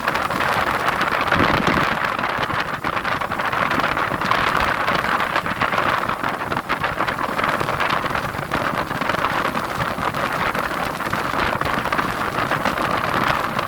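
Rough sea surf rushing continuously, swelling and easing every few seconds as waves break.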